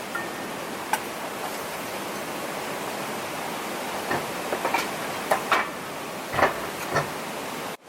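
Steady rushing noise, with a run of short knocks and clicks from about four seconds in.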